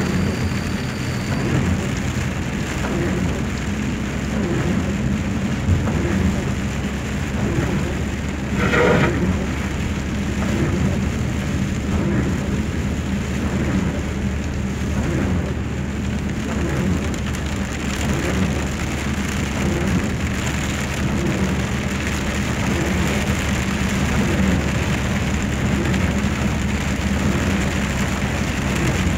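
Heavy rain falling steadily, with a steady low vehicle hum underneath. A short louder noise stands out about nine seconds in.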